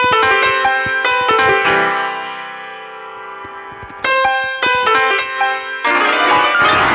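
A piano-like keyboard plays a quick run of notes, then a chord that rings and slowly fades, then another quick run. About six seconds in, a wavering electronic tone takes over.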